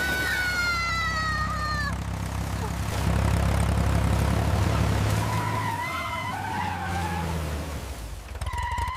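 A vehicle engine running with a steady low rumble. High squealing tones slide downward over the first two seconds, and wavering high tones come in around the middle and again near the end.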